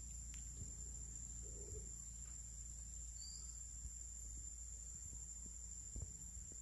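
Steady high-pitched drone of insects in surrounding forest, over a low rumble, with a faint knock about six seconds in.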